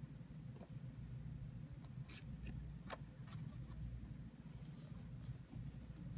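Hands shifting crocheted yarn chains on a wooden desktop: a few soft clicks and rustles about two to three seconds in, over a steady low hum.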